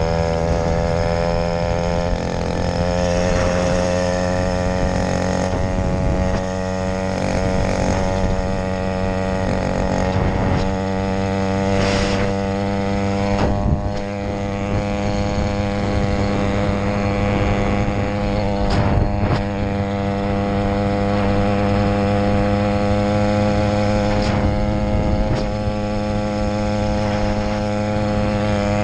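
Small two-stroke engine of an 80cc motorized bicycle running at a steady cruising speed, its pitch holding nearly constant with slight wavering. A couple of brief knocks are heard partway through.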